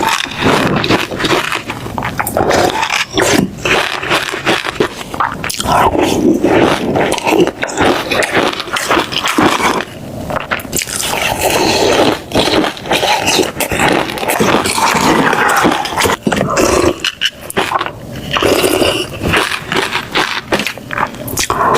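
A person eating close to the microphone: loud, irregular chewing and biting, with many small wet clicks.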